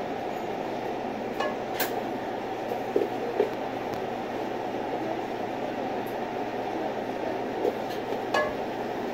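Steady rushing noise of a commercial kitchen exhaust hood fan, with a few short knocks and clinks as a plastic container of shredded lettuce is handled.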